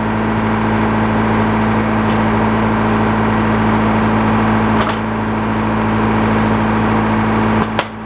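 Sawmill engine running steadily, a constant pitched hum. Boards being handled on the mill's steel roller table give a light knock about five seconds in and a sharper knock near the end.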